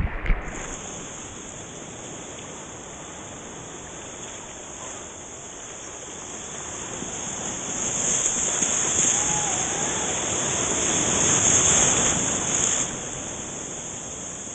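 Shallow surf rushing and fizzing around a camera at water level, swelling as a small broken wave's whitewash washes through, then dropping away sharply near the end. A steady high hiss runs underneath.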